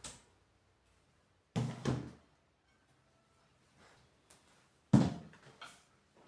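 Household knocks and thumps of a door being opened and shut: two dull thumps about a second and a half in, then a sharper, louder knock near the end followed by a couple of lighter ones.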